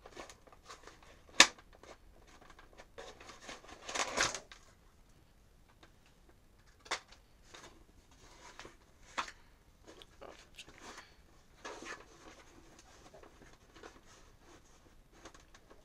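Hands working at a cardboard toy box and the plastic ties that hold the toy in: scattered clicks and scrapes, with one sharp click about a second and a half in and a longer rustling scrape around four seconds.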